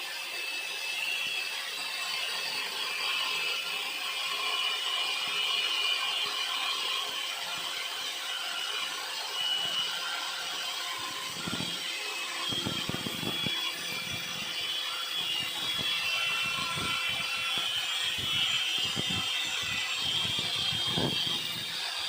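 Angle grinder grinding metal: a steady grinding noise over a faint constant motor tone, with irregular low knocks through the second half.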